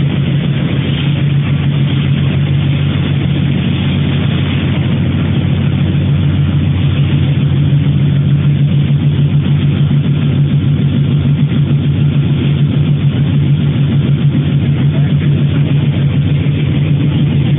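Rotary sawdust drying machine running: a loud, steady low hum of its motor-driven machinery with a fast, even flutter.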